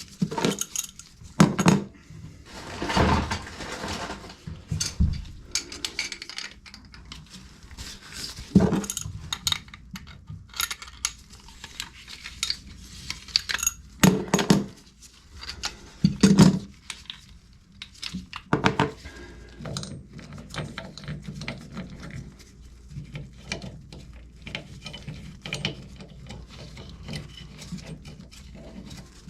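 Irregular metallic clinks and clanks of tools and metal parts being handled, with a handful of louder knocks spread through.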